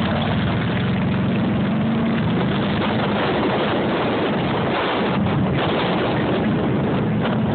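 Several touring motorcycles' engines running as the bikes ride past and move away, loudest in the first few seconds and then fading, with wind noise on the microphone.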